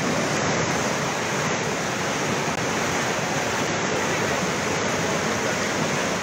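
Muddy flash-flood water rushing and churning past in a steady, loud torrent.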